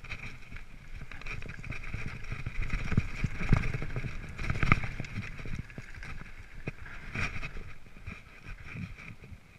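Mountain bike rolling fast down a dirt trail: tyres rumbling over dirt and leaves, with the bike rattling and knocking over bumps, the sharpest knocks about three and a half, four and a half and seven seconds in.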